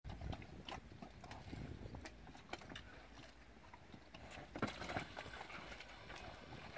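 Calves at an automatic ball drinker, with irregular knocks and clatter from hooves and from the floating balls being nosed down to reach the water, over a steady low rumble.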